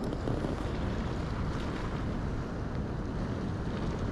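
Wind buffeting the microphone as a steady low rumble, over the wash of the sea.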